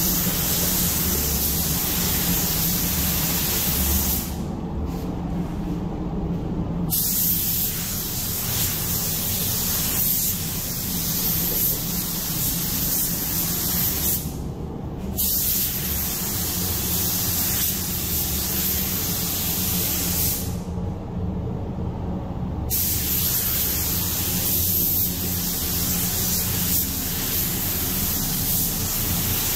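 Gravity-feed automotive paint spray gun hissing as it lays a light-to-medium coat of single-stage urethane black on a car hood. The hiss stops three times, for about three seconds, one second and two seconds, as the trigger is let off between passes, and a low steady hum carries on underneath.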